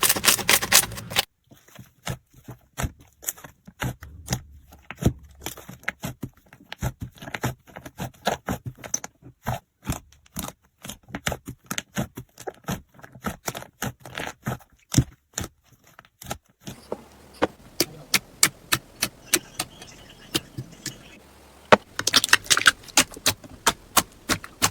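Slime being squeezed and worked by hand, giving a quick, irregular run of sticky clicks and pops. The sound changes abruptly twice, once near the start and again around two-thirds of the way through.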